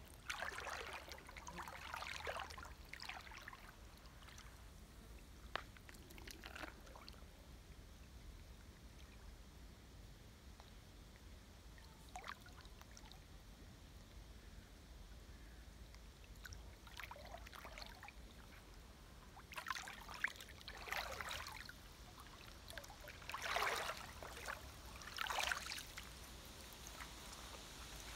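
Shallow creek water splashing and sloshing in scattered bursts as a person wades, kneels and moves about in it. The splashes come in the first few seconds, then again, more often and louder, in the second half.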